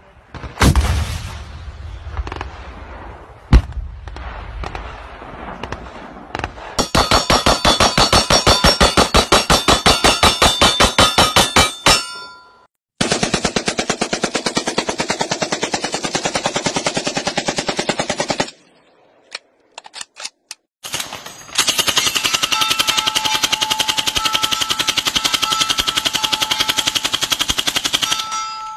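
Gunfire from several weapons in turn: a heavy blast about a second in from a shoulder-fired rocket launcher, and a sharp bang a few seconds later. Then long bursts of fully automatic rifle fire, one from an AK-pattern rifle, with a few single shots in a short gap before the last burst.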